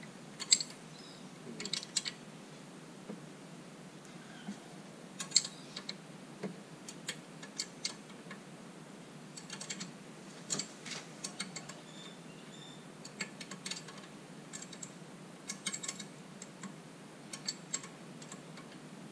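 Ratchet wrench clicking in short, irregular runs, with sharp metallic clicks of the tool on a bolt at the trim ram mount of a Mercruiser Bravo II stern drive.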